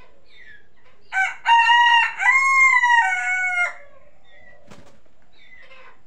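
A rooster crowing once: a loud call in several linked parts lasting about two and a half seconds, starting about a second in. Faint short high chirps come before it, and a single click follows.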